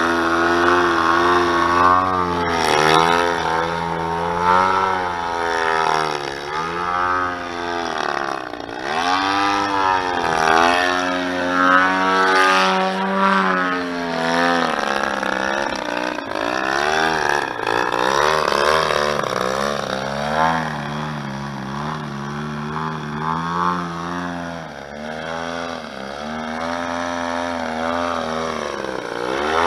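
DLE-111 twin-cylinder two-stroke gasoline engine and propeller of a 107-inch Pilot Edge aerobatic model airplane. Its pitch rises and falls over and over as the throttle is worked through 3D manoeuvres and hovering.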